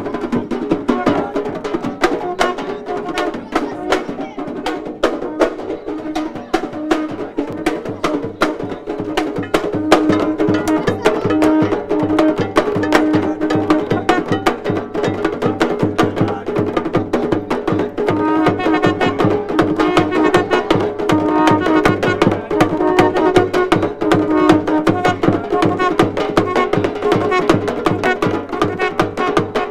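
Jab Jab carnival music: fast, dense percussion strikes over a repeating tune.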